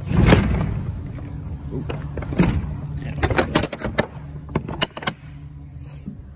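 Footsteps on a box truck's steel lift gate: a heavy thump at the start, a knock a couple of seconds later, then a quick run of sharp metallic clicks and clanks about three seconds in, over a steady low hum.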